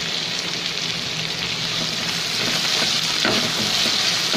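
Sliced onions sizzling in hot oil in a nonstick kadai over medium heat, stirred with a silicone spatula; the sizzle grows a little louder about halfway through.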